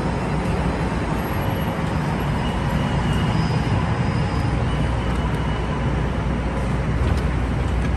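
Steady rumble and hiss of a CTA 5000-series rapid-transit train standing at the platform with its doors open, mixed with road traffic noise.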